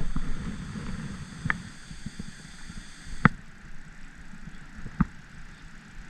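Three sharp knocks on a kayak, spaced a couple of seconds apart, over a faint steady hiss.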